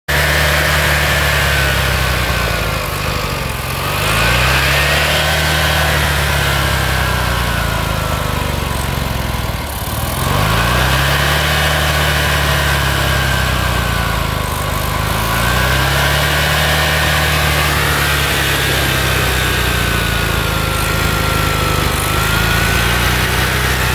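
Briggs & Stratton Twin 16 I/C lawn tractor engine running steadily. Its speed sags and climbs back up about three times.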